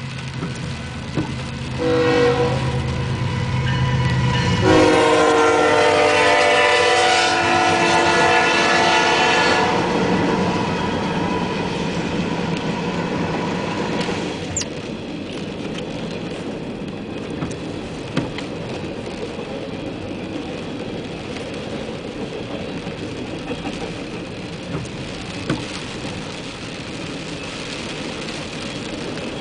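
Freight train passing with four diesel locomotives leading. Their engines rumble as the lead unit sounds its air horn, a short blast and then a long one of about five seconds. The freight cars then roll past with steady wheel noise and scattered clicks.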